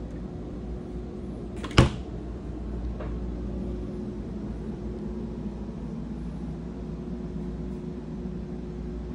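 A steady low mechanical hum with one sharp, loud knock about two seconds in and a much fainter knock a second later.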